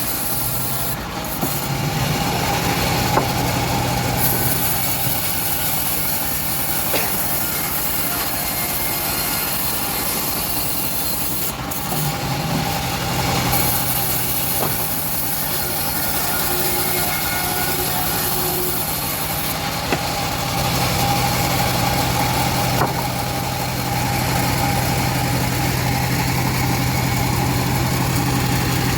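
Engine of a homemade bandsaw mill running steadily while the band blade saws through an old teak log, with a hiss that comes and goes above the engine's hum.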